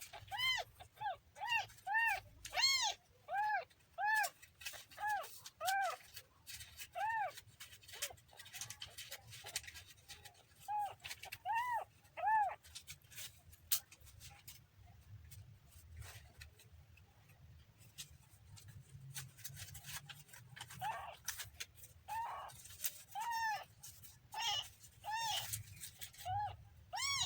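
A kitten mewing in short, high cries that rise and fall in pitch, about two a second, in runs broken by a long lull in the middle.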